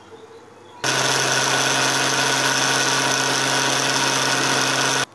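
Prokit 444 Plus food processor motor switched on about a second in and running steadily with a hum and whirr, whipping whipped-cream powder with cold milk, then cut off abruptly near the end.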